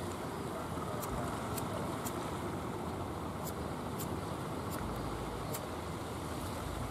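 A wooden motor boat's engine running steadily as the boat comes in across the sea, blended with the wash of water, with a few light ticks.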